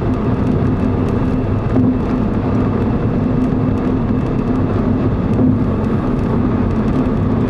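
Steady road noise of a car driving at highway speed, heard from inside the cabin: an even rush of tyre and wind noise with a steady hum beneath it.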